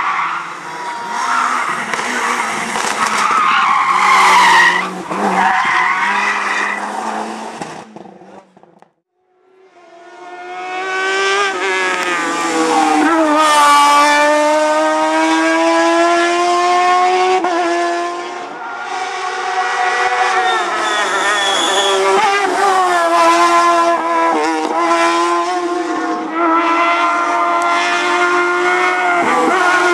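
Race car engines at full throttle on a hillclimb: first a rally car accelerating past, then, after a brief break about nine seconds in, a sports prototype's engine revving high, the pitch climbing through each gear and dropping at every shift.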